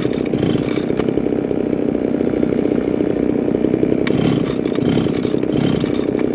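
Small two-stroke chainsaw engine idling steadily.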